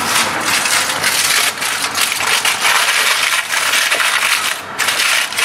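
Aluminium foil crinkling and crackling as it is pressed and folded by hand around a small clay brazier, in a dense continuous run with a brief pause near the end.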